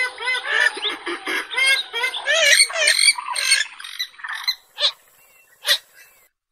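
Purple gallinule (Porphyrio) calling: a fast series of clucking notes, about three a second, that turns into louder, harsher, varied calls about two to four seconds in. Two single sharp calls follow near the end.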